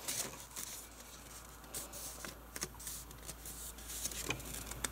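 Faint rustling and light taps of folded A4 paper being handled as the wings of a paper glider are opened out.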